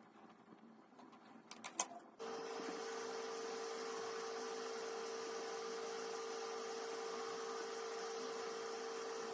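A few clicks, then a small electric machine switches on about two seconds in and runs steadily with a constant hum and hiss.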